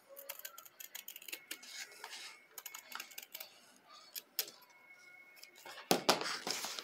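Straight-bladed scissors snipping through thick non-woven (TNT) fabric in a run of short, crisp cuts. About six seconds in there is a louder noise lasting around half a second.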